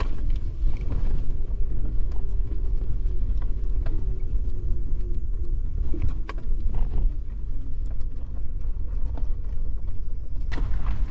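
Suzuki Jimny being driven over a rough mountain road: a steady low rumble of engine and tyres, with a faint wavering engine note and scattered sharp knocks.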